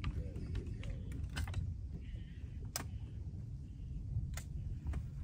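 Scattered sharp clicks and taps, irregular and about ten in all, from fishing rods and tackle being worked on a bass boat deck, over a steady low rumble.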